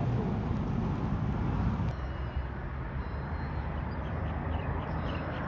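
Steady low engine rumble with a noisy wash over it, heavier for the first two seconds and then easing, with faint short chirps in the second half.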